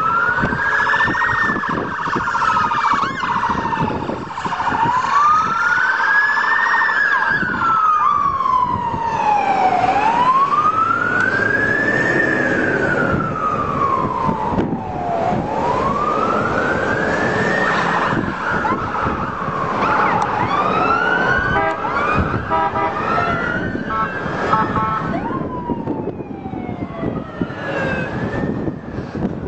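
Emergency vehicle siren wailing, rising and falling slowly about every five to six seconds, over street traffic noise. About two-thirds through, a run of short repeated tones sounds alongside the wail.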